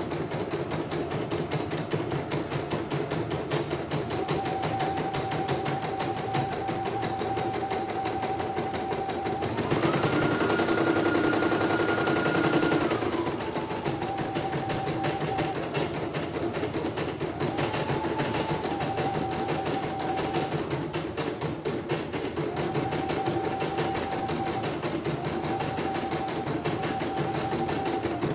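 CNY E900 computerized embroidery machine stitching out a design, with rapid, even needle strokes. A motor whine comes and goes, and for about three seconds midway it rises in pitch and gets louder as the machine speeds up.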